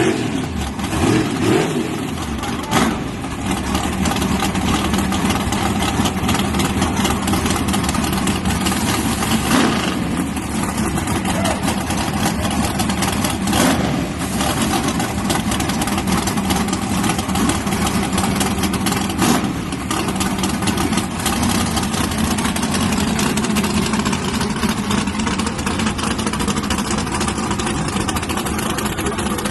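Car engine running steadily at a fairly even speed, loud and unchanging, with a few brief louder surges.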